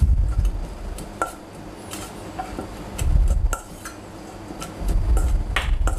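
Stainless steel mixing bowl being shaken and rocked on a chopping board to toss shredded lettuce, with dull thumps at the start, about three seconds in and near the end, and scattered light metallic clicks.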